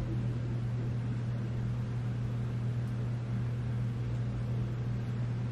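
Steady low hum with an even hiss underneath, unchanging throughout: the constant background drone of a machine running in the room.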